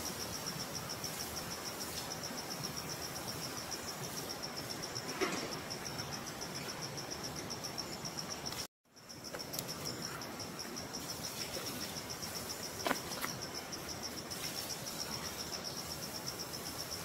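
Insects chirring steadily in a high, fast-pulsing drone over a faint background hiss. The sound drops out for a split second a little past halfway, then resumes.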